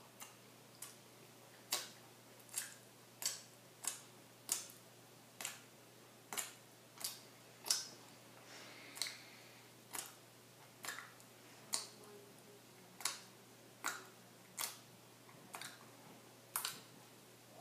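A person chewing a mouthful of burrito spread with Reese's peanut butter spread, making sticky mouth clicks and smacks about once a second.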